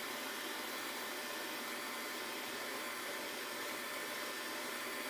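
Xiaomi Mi robot vacuum running steadily, its suction fan giving an even whirring hiss. It is still searching for a docking station that has no power, so it does not stop to park.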